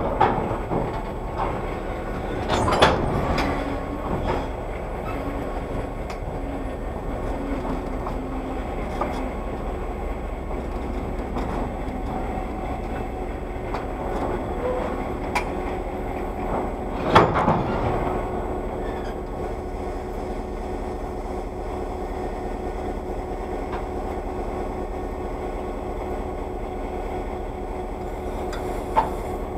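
Railroad passenger car rolling slowly over yard track, a steady low rumble with sharp metallic clanks about three seconds in and again around seventeen seconds, easing to a stop. A steady hum runs under the second half.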